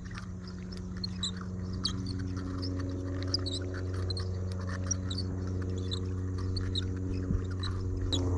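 A steady low motor hum that grows slowly louder, with scattered faint high chirps.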